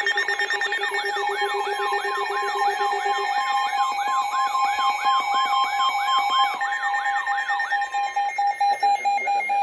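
Weather radio warning alarm sounding for a severe thunderstorm warning: a siren-like tone sweeping about two to three times a second over steady beeping tones. The sweeping stops near the end, leaving the beeping tone.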